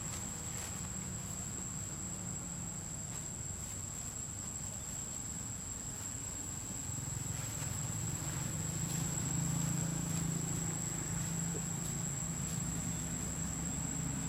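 Outdoor forest ambience: a steady high-pitched insect drone throughout, with a low hum that grows louder about halfway through.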